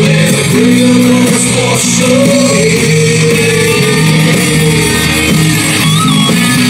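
Rock song with a singer and guitar playing from a Bang & Olufsen Beosound Explore Bluetooth speaker. The speaker is working normally now that its battery-management fault has been cleared.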